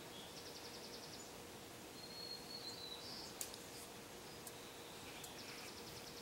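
Quiet outdoor background with faint high-pitched chirping: a short rapid trill near the start and another near the end, and a thin whistle about two seconds in. A couple of light clicks come about three and a half and four and a half seconds in.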